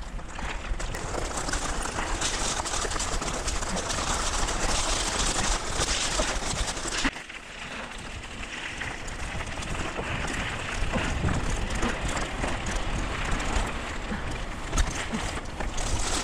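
Tyres of a P3 Nomad single-speed bicycle crunching over a gravel road, the bike rattling over the bumps, with a steady rumble of wind on the microphone. The noise drops suddenly about seven seconds in, then builds again.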